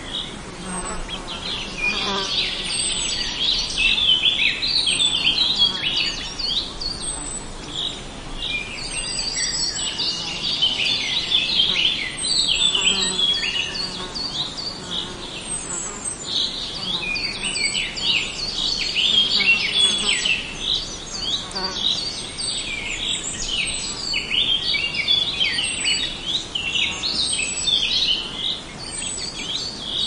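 A dense chorus of small birds chirping and twittering, many short high calls overlapping without a break, with one short, very high note repeating about every second or two.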